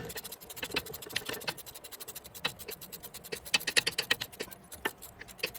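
Quick, uneven metallic clicks and scraping as a 7/16 fine-thread bolt is run into the wedge keeper of a Coleman axle's wheel end.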